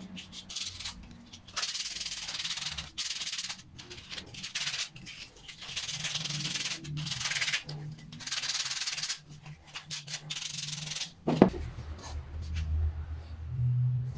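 Sandpaper rubbed by hand over a small carved wooden figure, in scratchy strokes of about a second each with short pauses between. One sharp knock near the end is the loudest sound.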